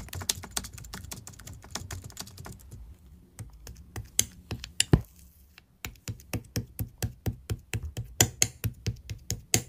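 Blue clear slime topped with white cloud slime being pressed and scooped with a metal spoon, giving off a run of sharp clicking pops. The clicks are dense at first and sparser in the middle, then run quicker and more evenly, about five a second, over the last few seconds.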